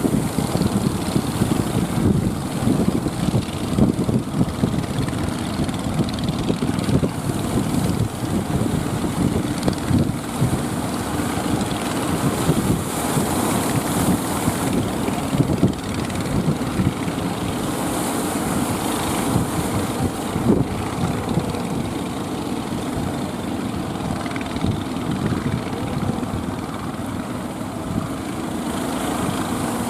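Strong wind buffeting the microphone in irregular gusts, a constant low rumble and flutter.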